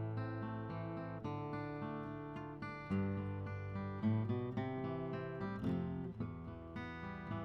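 Instrumental music on a strummed acoustic guitar, with the chords changing every second or so.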